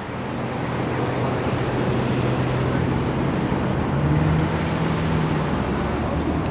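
Road traffic noise: a steady wash of passing vehicles with a low engine hum that grows stronger and a little higher about four seconds in. It fades in over the first second.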